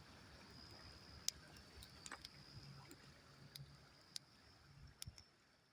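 Campfire crackling faintly: scattered sharp pops and clicks over a low hiss, with a steady high-pitched tone in the background. It fades away near the end.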